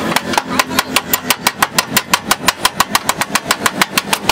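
Rapid, even tapping of metal on a car's sheet-metal rocker panel, about six sharp taps a second, each with a short metallic ring.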